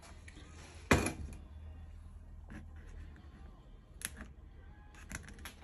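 A single sharp knock about a second in that rings on briefly, then a few fainter clicks, over a low steady hum.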